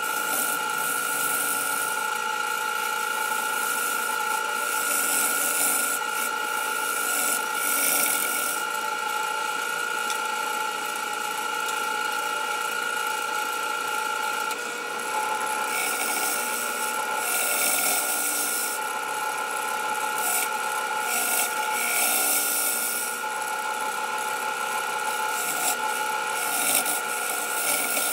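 Grizzly wood lathe running with a steady whine while a turning tool cuts the spinning aromatic cedar blank, the cuts coming as hissing swells several times over.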